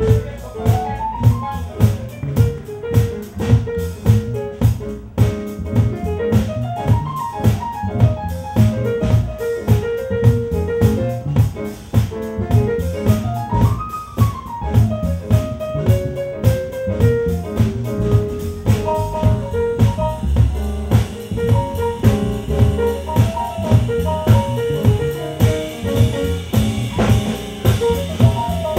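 Live jazz-funk band playing an instrumental passage: a keyboard line with quick rising and falling runs over bass and a steady drum-kit beat.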